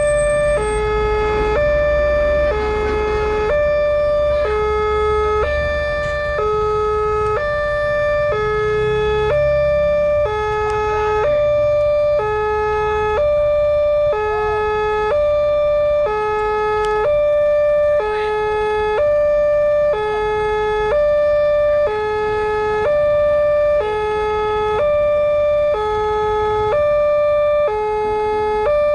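Indonesian railway level-crossing electronic alarm sounding, two pitches alternating evenly at a little over half a second each, as the crossing warns of an approaching train. A low rumble lies beneath it in the first few seconds and again around ten seconds in.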